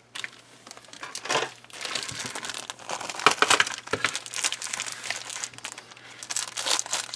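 Thin clear plastic bag crinkling as a sprue of styrene model-kit parts is handled inside it, in irregular rustling flurries that start just after the beginning.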